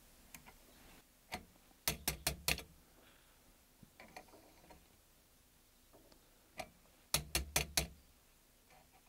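Channel-lock pliers clicking on the adjusting bolt of a water pressure regulator as the bolt is turned out to lower the water pressure. Two runs of about four quick sharp clicks, about five seconds apart, each after a single click.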